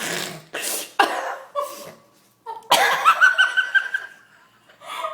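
A person in a laughing fit: three short breathy coughs or gasps, then, after a brief pause, a high-pitched wheezing laugh in quick pulses.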